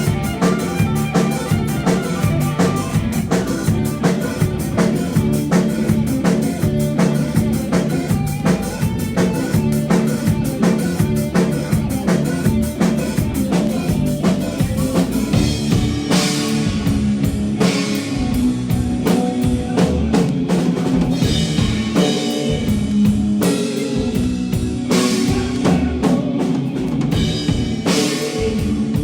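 Live band playing loudly, the drum kit prominent with kick, snare and rimshots over bass and guitar; crashing cymbals come in more strongly about halfway through.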